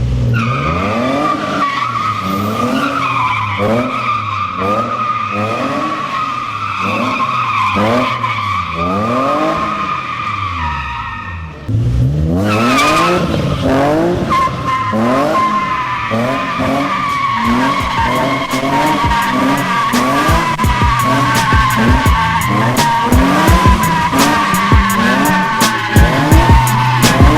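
Nissan 240SX with a swapped-in VQ35 V6 and custom exhaust, its engine revving up and dropping back about once a second as the throttle is worked, while its tyres squeal steadily, as in a drift. The sound breaks off about twelve seconds in and then picks up the same way. Sharp clicks come more and more often near the end.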